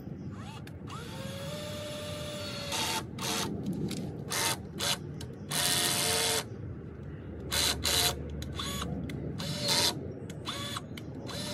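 Power drill run in a series of short trigger bursts, its motor pitch rising and falling with each squeeze, with one longer run about halfway through. This is typical of driving screws into wood.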